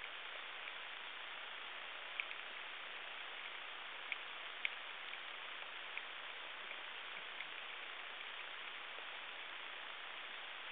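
Underwater ambience: a steady hiss with scattered short, sharp clicks.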